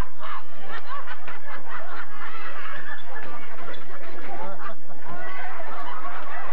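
Audience laughing and chattering, many voices at once.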